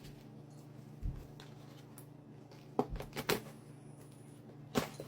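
Packaging and an item being handled: a handful of short sharp taps and rustles, one with a low thump about a second in, three close together around the middle and one more near the end, over a faint steady hum.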